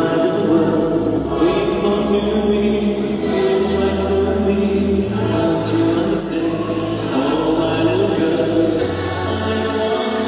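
Recorded music with singing, played loudly through a DJ's PA sound system during a sound check; the bass line changes note every second or two.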